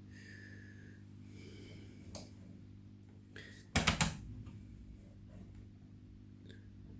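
Scattered clicks from the front-panel controls of a vintage Scopex 4D10 oscilloscope being turned and switched, with one louder knock about four seconds in, over a steady low hum.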